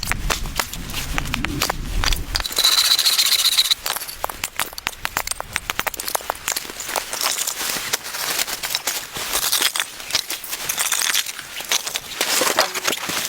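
Dense, irregular crackling and crunching, with a low rumble in the first couple of seconds and a brief steadier high rasp about three seconds in.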